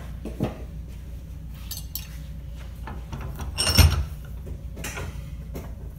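Light metal clinks and knocks as a metal orthosis stirrup is handled and set into the jaws of a cast-iron bench vise, with one louder metallic knock a little under four seconds in.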